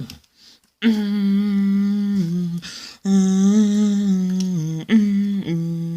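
A voice humming a simple tune in long held notes, each phrase stepping down in pitch at its end, in two longer phrases and then a few shorter notes.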